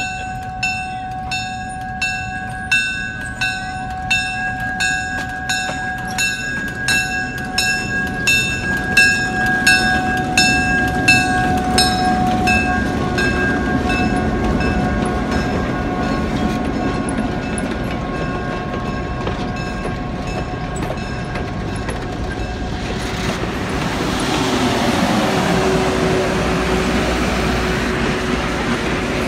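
Diesel locomotive's bell ringing steadily, about two strikes a second, as the EMD GP7 rolls slowly past; the ringing fades after about twelve seconds. Later the rumble of the engine and the coaches' wheels on the rails grows louder as the train goes by.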